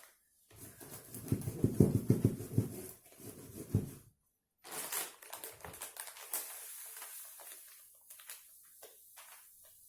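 Sugar being worked into a three-litre glass jar packed with pine cones: granules pattering and rustling among the cones, with knocks from the jar being handled. The loudest stretch is in the first few seconds, followed by lighter clicks and rustles.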